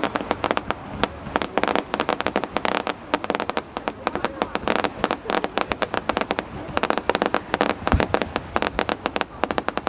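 Fireworks display: a dense run of sharp crackling bangs, several a second without let-up, with one deeper boom about eight seconds in.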